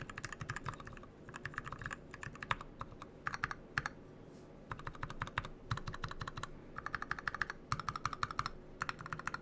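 Typing on a 40% mechanical keyboard with a brass plate and 68 g Zealio tactile switches, lubed with Tribosys 3204 and filmed, under XDA keycaps. Fast runs of keystrokes, each lasting about a second, with brief pauses between.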